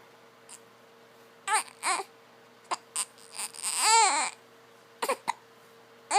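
Baby vocalizing: several short squeaks, then a longer sound about four seconds in that rises and falls in pitch, followed by two brief squeaks near the end.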